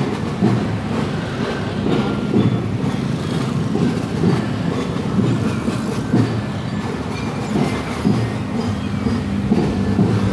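Several motorcycle engines running steadily at low speed, a continuous low rumble.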